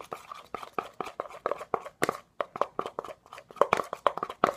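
Spoon stirring glue and shaving cream in a bowl, with quick, irregular clicks and taps of the spoon against the bowl.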